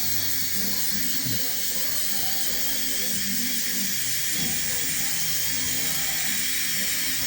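Background music over the steady high whir of a dental handpiece polishing composite resin restorations.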